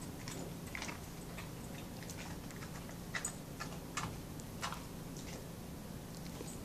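Quiet room with a steady low hum and a few faint, irregular light clicks.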